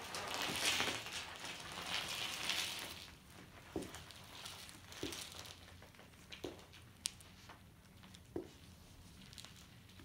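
Nearly flat knobby mountain-bike tyres rolling over gritty concrete, with a crackling, crunching hiss for the first few seconds. Then comes a few soft, spaced footsteps as the bike is walked closer.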